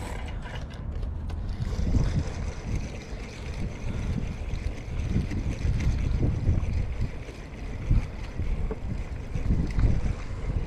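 Wind buffeting the microphone on an open seashore: an uneven low rumble that swells and fades in gusts.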